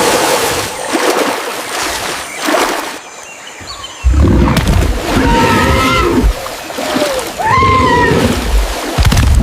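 Splashing, then a loud low rumble with two drawn-out animal calls that rise and fall in pitch.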